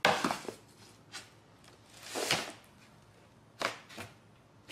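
Cat's paws and body scraping and rustling against a cardboard box as it climbs in and moves about: a sharp scrape at the start, then a few shorter scrapes and rustles, with a longer one a little past two seconds in and two quick ones near the end.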